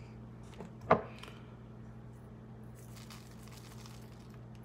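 Powdered chili seasoning shaken from a plastic shaker bottle onto a mango slice: faint scattered ticks and a light hiss near the end, over a low room hum. A single short click about a second in.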